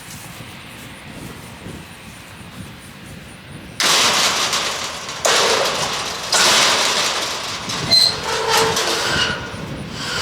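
Steel livestock panels rattling, scraping and clanking as they are handled: a sudden loud burst about four seconds in, then several more noisy surges with brief metallic ringing.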